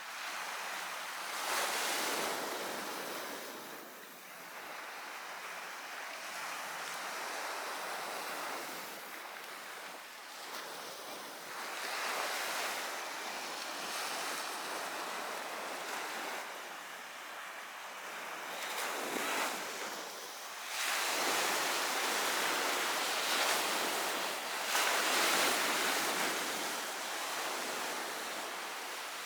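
Sea waves breaking and washing up on a beach, swelling and easing in surges every few seconds.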